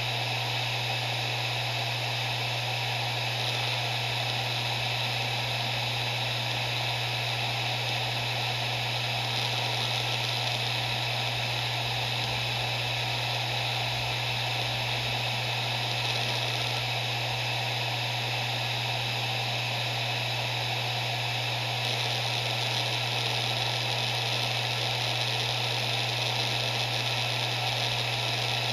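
Maxtor MaXLine Plus II 250 GB 7200 rpm hard drive spinning at speed: a steady low hum under an even whirring hiss.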